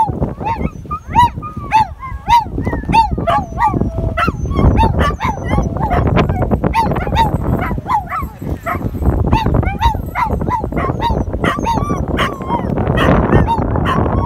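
Dog whining and yipping excitedly in short, high, arching cries, over and over, over a steady low rumble.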